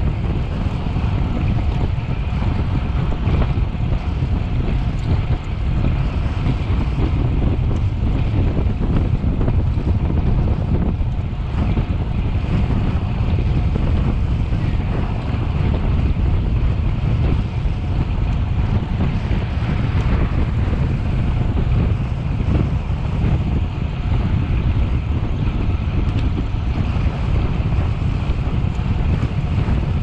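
Wind buffeting the microphone of a cyclist riding at speed: a steady low rumble that does not let up.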